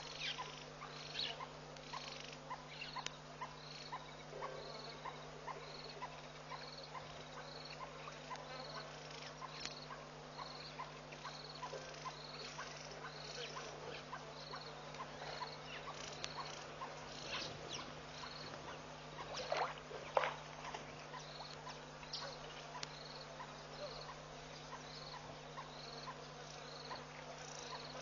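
Steady low hum with a faint high chirp repeating about once a second and scattered soft clicks; a louder cluster of clicks about twenty seconds in.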